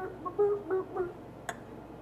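A girl's voice making several short hummed sounds in quick succession, then a single sharp click about a second and a half in.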